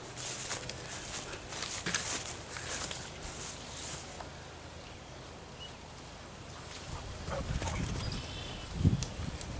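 Footsteps and rustling crackles in dry leaves and brush during yard cleanup, quieter in the middle. Near the end come a low rumble, a louder thump and a few faint bird chirps.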